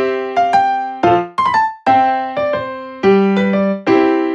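Background piano music: chords and single notes struck and left to ring out, a few each second.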